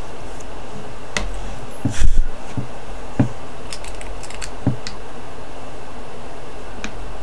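Small clicks and taps of a tiny glass bottle charm and craft supplies being handled and set down on a cutting mat, with one heavier thump about two seconds in, over a steady background hiss.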